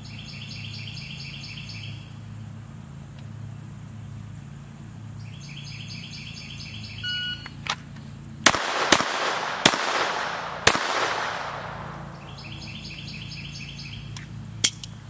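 A shot timer beeps. About a second and a half later a Glock 44 pistol fires four .22 LR shots in about two seconds, the gaps between them lengthening, each report trailed by a fading echo. Rhythmic chirping comes and goes in the background.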